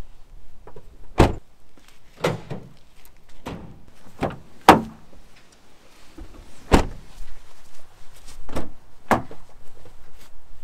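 An irregular series of about eight sharp knocks, the loudest a little before the middle.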